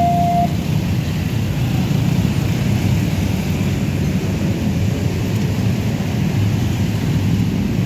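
Dense motorcycle and car traffic running over a railway level crossing, a steady close rumble of many small engines and tyres. The crossing's alternating two-tone warning alarm sounds its last tone for about the first half second, then stops.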